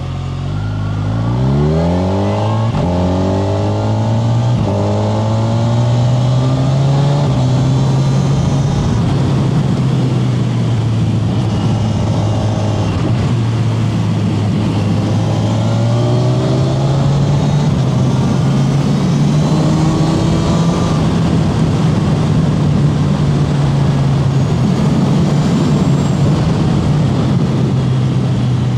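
Kawasaki Z1100 SE's air-cooled inline-four engine rising in pitch as the bike pulls away over the first few seconds. It then runs on at a fairly steady pitch that rises and falls only slightly.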